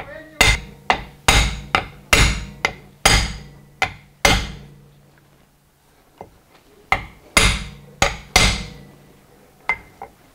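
A hammer striking a large socket to drive a new pinion seal into a rear differential housing. The blows are sharp and metallic, each with a short ring, coming in a quick run of about ten, then a pause of about two seconds, then about five more.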